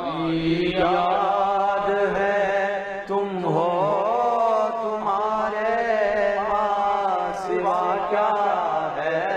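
Male voice chanting a na'at, drawing out long wavering melismatic notes without clear words, over a steady low held drone. There is a brief break for breath about three seconds in.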